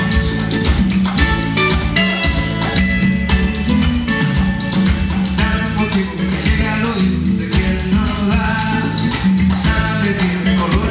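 Live band playing an upbeat Latin funk groove, with hollow-body electric guitar and electric bass over a steady beat.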